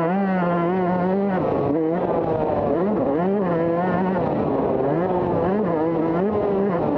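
Motocross dirt bike engine heard from on the bike while racing, its pitch rising and falling with the throttle, with a brief drop in the engine note about a second and a half in.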